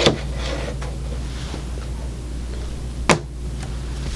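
Two short sharp clicks from the wooden alarm clock being handled, one right at the start and one about three seconds in, over a steady low hum.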